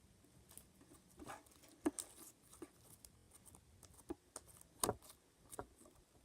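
Slime being handled and squished by hand, with irregular small clicks and pops.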